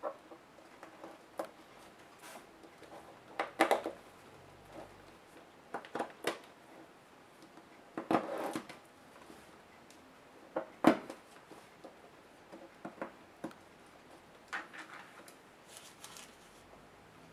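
Hands working at a laptop's plastic display bezel: scattered light clicks and taps of plastic. There are louder snaps about three and a half and eleven seconds in, and a short crackle about eight seconds in.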